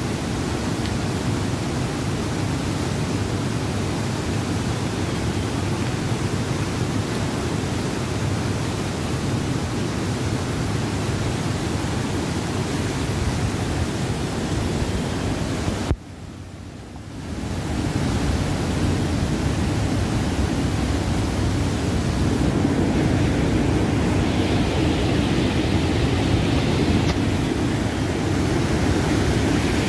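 Fast mountain river rushing over boulders: a steady, dense roar of whitewater rapids. It drops out briefly about halfway through, then returns.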